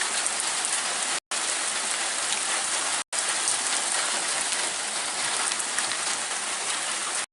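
Heavy rain pouring down in a thunderstorm, a steady dense hiss of falling water. The sound cuts out completely twice, very briefly, in the first half.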